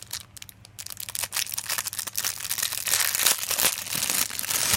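Packaging crinkling and rustling in a steady, irregular crackle as a newly delivered laptop cooling fan is unwrapped by hand, busiest in the second half.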